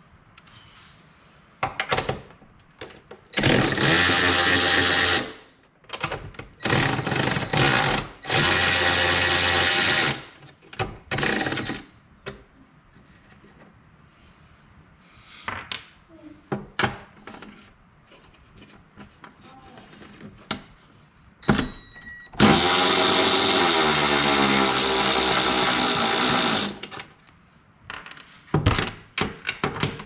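Handheld power tool running in several bursts of one to four seconds, its pitch shifting under load, backing out the bolts that hold a snowblower's cutting edge. Light clicks and knocks of tools and parts come between the bursts.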